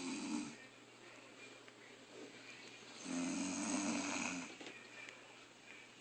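Snoring in sleep. One snore fades out in the first half-second, and another lasting about a second and a half comes about three seconds in, with quieter breathing between.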